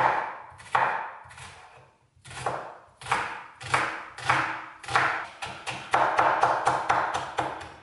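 Chef's knife slicing a white onion on a wooden cutting board: a series of sharp knocks as the blade meets the board, spaced at first, then quickening to about four a second in the second half.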